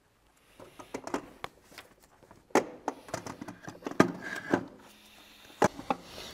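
Scattered clicks and knocks of hands and tools working on the starter deep in a car's engine bay, with a few sharper knocks about two and a half, four and five and a half seconds in.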